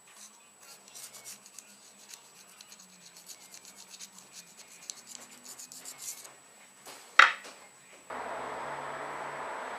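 Rubbing and scratching handling noises, then a single loud sharp scrape about seven seconds in, followed from about a second later by a steady hiss.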